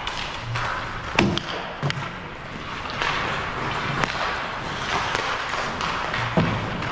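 Ice hockey sticks and pucks: about five sharp clacks and thuds as pucks are struck and hit the boards, the loudest about a second in and near the end, over a steady haze of rink noise.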